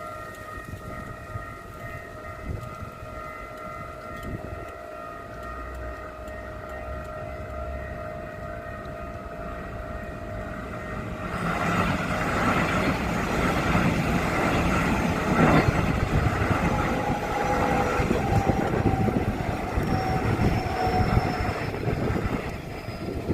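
Level crossing warning signal sounding a steady, unusual alarm tone at several pitches. About eleven seconds in, a local passenger train passes through the crossing with a loud rushing rumble that lasts about ten seconds and drops off near the end, the warning tone still sounding.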